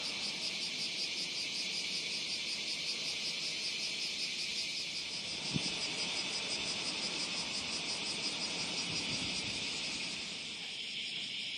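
A dense, steady chorus of cicadas, a high pulsing buzz, with one brief low thump about halfway through.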